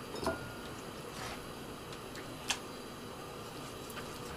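Raw whole chicken being pulled apart by hand to strip the meat off the bones: a few faint, short clicks and knocks spread over a few seconds, above quiet room tone.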